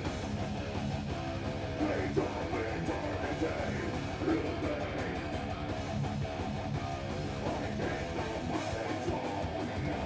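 Heavy metal band playing live: distorted electric guitars and bass guitar over drums, with no break.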